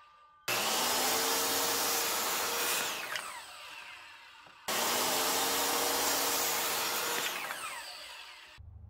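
Corded Kobalt circular saw cutting a wooden board, run twice: each time the motor starts and rises in pitch, runs loud through the cut for about two seconds, then winds down with a falling whine.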